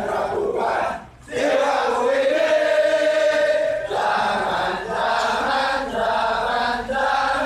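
Large group of men chanting a yel-yel cheer in unison, sung in short phrases, with a brief break about a second in and one long held note in the middle.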